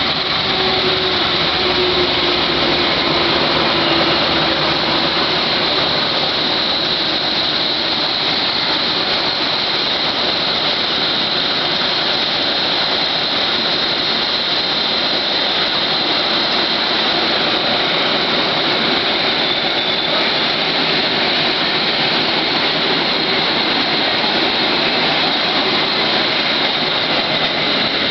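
Argo Lawu express passenger train running through a station at speed: a loud, steady rush of wheels on rail and moving air as the coaches go by, with a faint falling tone in the first few seconds.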